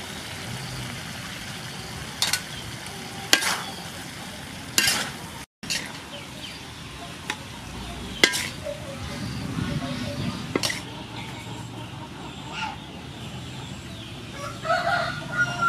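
Lotus root, shrimp and pork stir-frying in a pan: a steady sizzle, with several sharp knocks and scrapes of the spatula against the pan as the food is stirred.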